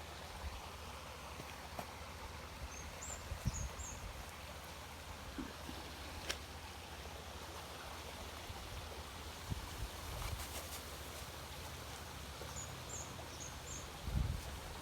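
Steady running water of a stream, with a small bird's short high chirps twice, about three seconds in and near the end, and a few soft low thumps.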